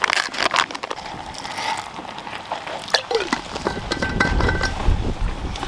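A spoon clinking and scraping against a container as lentils are scooped out into a small metal cooking cup, with a sharp click about three seconds in and a low rumble after it.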